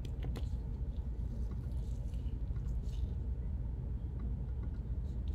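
A few faint clicks of a computer mouse and keyboard, over a low steady room hum.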